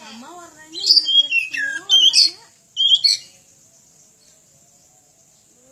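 Oriental magpie-robin (kacer) singing a loud burst of varied, rapidly changing whistles and chattering notes from about a second in, then a short final phrase about three seconds in.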